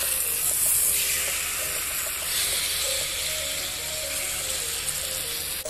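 Ribeye steak frying in melted butter in a cast-iron skillet: a steady sizzle.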